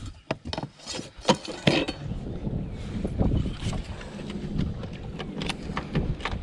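Several sharp knocks and clicks of things being handled on a fishing boat, bunched in the first two seconds with a few more later, over a steady low rumble.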